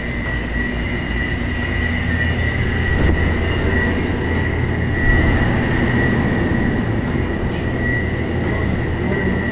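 Steady machine hum of refrigerated drink coolers and cooling units, a low rumble with a thin high whine running over it.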